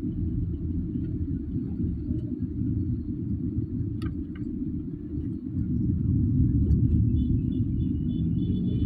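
Low, steady road and engine rumble heard inside a moving car's cabin, growing a little louder about six seconds in, with a couple of faint clicks midway.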